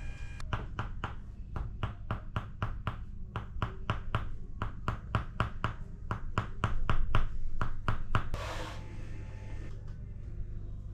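Tok Sen treatment: a wooden mallet tapping on a wooden wedge in an even rhythm, about three to four strikes a second, stopping about eight seconds in, followed by a brief rustling hiss.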